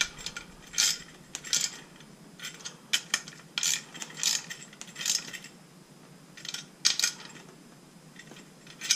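Socket ratchet on a 12 mm socket clicking in short, irregular bursts as the cylinder head bolts of an 80cc two-stroke bicycle engine are checked for tightness.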